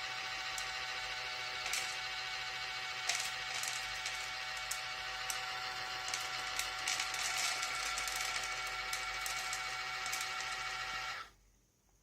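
Small electric motor of a Dog Mate D3000 automatic pet feeder running with a steady whine and irregular clicks, stopping abruptly about eleven seconds in.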